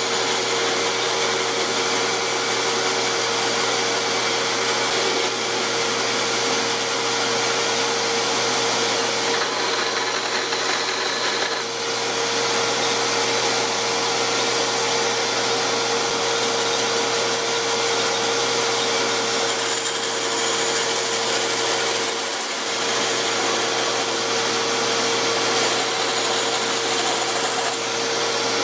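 Benchtop bandsaw running steadily with a constant motor hum and whine, its blade cutting small walnut blocks. The sound dips briefly twice, around the middle and about two-thirds through.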